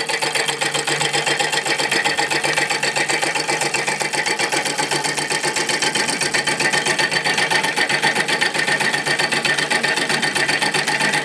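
Homemade solenoid engine running at speed: a truck PTO idle solenoid pulsing its plunger against the crank, switched by a microswitch that the crank counterweight trips, with a flywheel pulley spinning on the shaft. It makes a rapid, even mechanical clatter.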